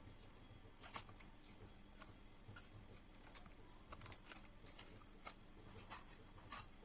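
Near silence with faint, irregular small clicks and taps, about a dozen of them scattered through, over a low steady hum.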